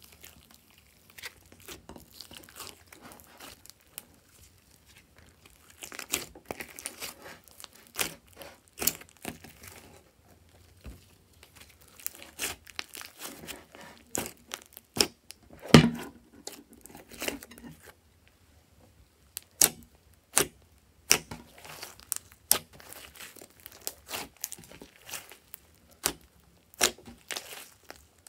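Hands kneading and squeezing a large mass of glossy cream slime mixed with clay and makeup. It gives off irregular sticky pops and crackles in uneven clusters, and the loudest pop comes a little past halfway.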